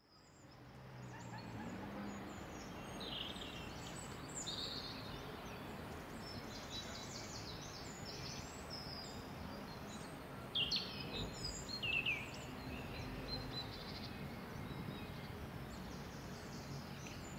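Birds chirping and calling over a steady low hum of city ambience, which fades in at the start. A few louder, falling chirps come about two-thirds of the way in.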